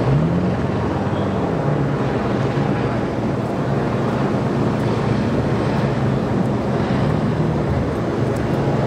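Steady engine and traffic noise, with a low engine hum that rises and falls a little.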